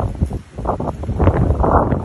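Wind buffeting the phone's microphone, an uneven low rumble that drops out briefly about half a second in.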